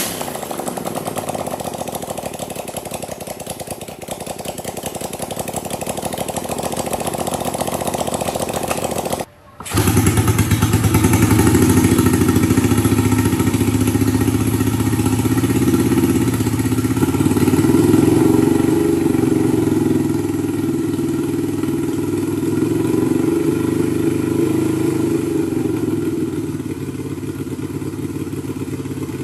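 Home-built 250cc L-twin engine, converted from a scooter engine, running on a bench. It runs higher-pitched for about nine seconds, cuts out for a moment, then runs lower and louder.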